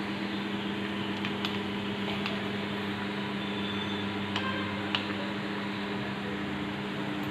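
Steady background machine hum, like a fan or electric motor running, with a few faint light clicks of parts being handled.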